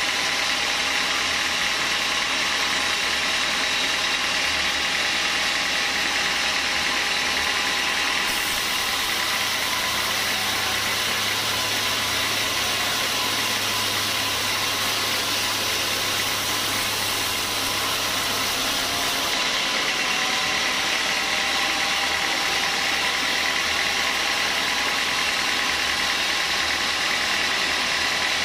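Band sawmill running steadily as its blade rips lengthwise through a beam of hard small-leaf acacia, a continuous loud hiss of blade in wood. The hiss turns brighter from about eight seconds in until about nineteen seconds.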